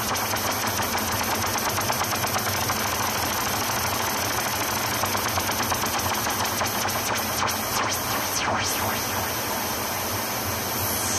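Experimental electronic ambient music: a dense, steady rattling noise made of rapid clicks. About eight seconds in, a whistle-like tone swoops down and back up.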